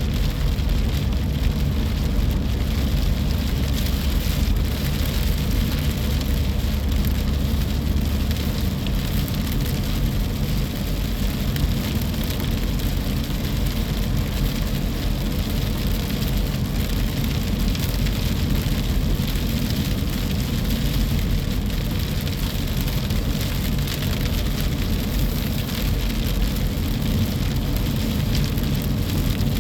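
Wind and rain of a coastal storm, a steady loud rushing hiss with a heavy low rumble that eases after the first several seconds.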